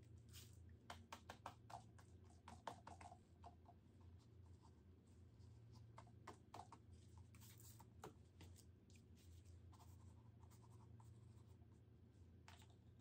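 Gloved hands rubbing and dabbing paint across a textured canvas: faint, quick runs of soft scratchy strokes, busiest in the first few seconds and again midway, over a steady low hum.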